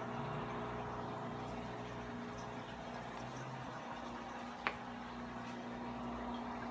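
Aquarium pump and filter running: a steady motor hum with water bubbling and trickling. One sharp click a little over halfway through.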